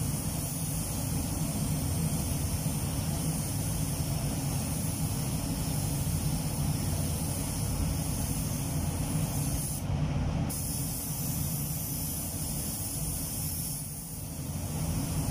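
Compressed-air spray gun hissing as clear coat is sprayed onto a car's bodywork, over a steady low rumble, with a brief sharper burst of hiss about ten seconds in.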